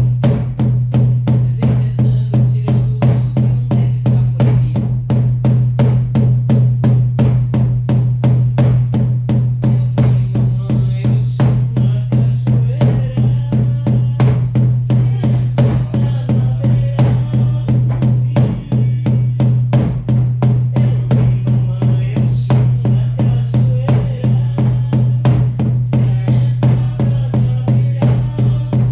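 Shamanic drums beaten in a steady even rhythm, about three beats a second, with a deep booming resonance. In the second half, wordless singing wavers over the beat in places.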